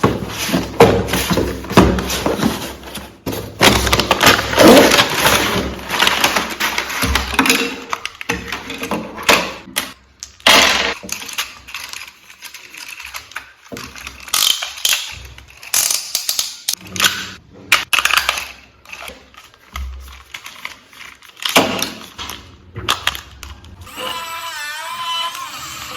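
Unboxing noise: packaging and a plastic toy excavator being handled, with irregular knocks, clicks and rustling, busiest in the first ten seconds. Near the end a wavering high tone comes in.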